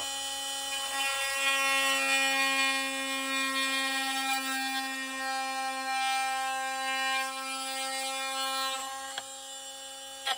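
A small motor running with a steady buzz at one unchanging pitch, with a single click about nine seconds in.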